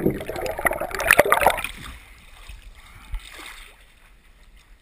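Water splashing and sloshing as someone moves about in a koi pond, with knocks and clicks, loud at first and dying away after about two seconds.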